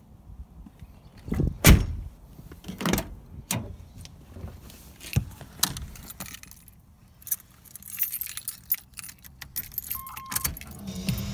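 Scattered clicks and knocks of handling in a car cabin, with keys jangling as a hand reaches for the steering-column ignition. A short faint beep comes near the end.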